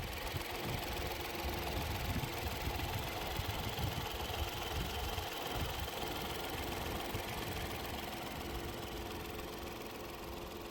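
Interior noise of a Peugeot 408 with the 1.2 PureTech three-cylinder petrol engine: a steady low engine rumble under an even rush of road and wind noise, easing slightly toward the end.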